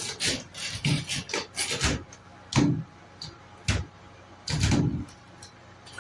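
Irregular knocks and rubbing from a handheld shower head being handled and repositioned: a quick run of clatters, then a few heavier bumps.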